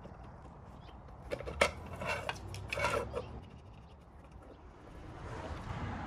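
A quarter-inch ratchet ticking as it backs out small 3 mm bolts from a winch control box side plate, then light metal clinks and clatter as the tool and bolts are handled and set down on a steel parts tray.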